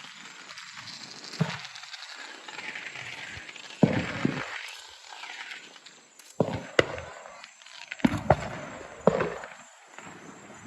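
Neighbourhood fireworks going off: about six sharp bangs a second or two apart, each trailing off, with crackling between them.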